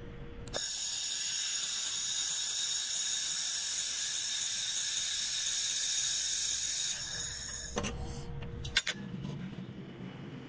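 Handheld 1500 W fiber laser welder (LaserMen LM-2000) welding an internal corner joint in carbon steel: a steady, loud hiss with high ringing tones that starts abruptly about half a second in and cuts off near eight seconds. A single sharp click follows about a second later.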